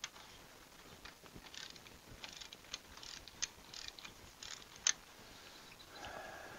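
Hand ratchet and socket wrench clicking and clinking irregularly on the spark plugs of a 1924 Fordson Model F engine, with one sharper metal clink about five seconds in.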